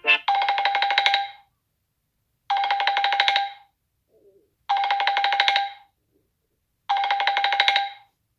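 Samsung Galaxy J7 Pro ringtone in the style of an old telephone bell, played through the phone's loudspeaker: a fast rattling ring lasting about a second, repeated four times about every two seconds.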